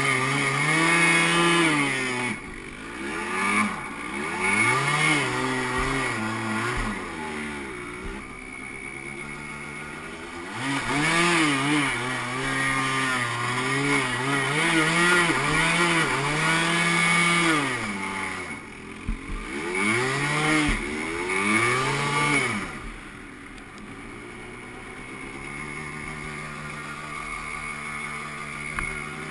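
Yamaha Blaster's 200cc two-stroke single-cylinder engine revving up and down again and again under throttle while the ATV spins donuts in snow. For the last several seconds it settles to a lower, steadier note.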